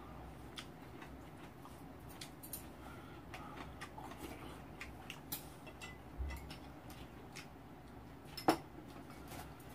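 Spoons and metal chopsticks clicking and scraping now and then against bowls and pots during a meal, with one sharper clink a little over eight seconds in.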